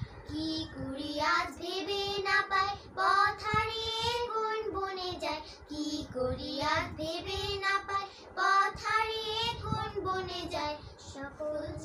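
Two young girls singing a song together, holding long notes with a wavering vibrato.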